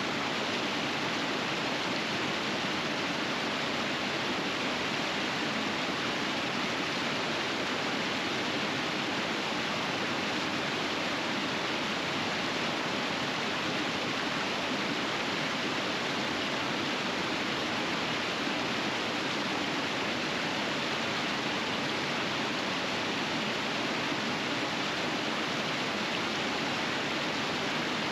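River rapids rushing: a steady, even flow of water with no change throughout.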